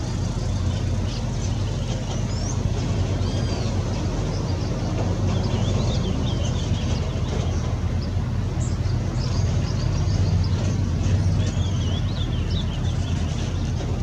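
Ultramarine grosbeak singing several short, quick warbled phrases, faint over a louder steady low rumble.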